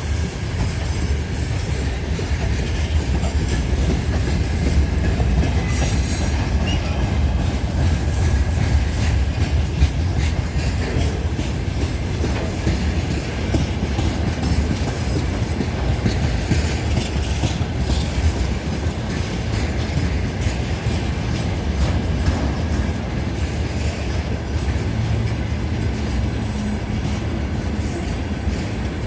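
2TE10M diesel locomotive, with its two-stroke opposed-piston 10D100 diesels, running at low speed as it pulls into a station, with a steady heavy low rumble. Brief high-pitched sounds rise above it several times.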